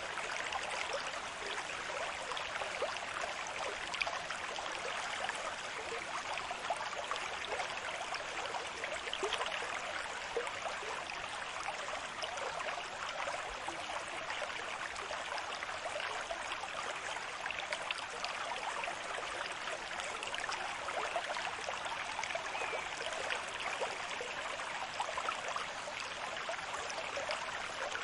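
Steady rushing and fizzing water, with only slight swells in level and no breaks.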